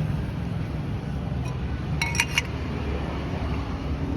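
Three or four quick metallic clinks about two seconds in, ringing briefly, over a steady low rumble.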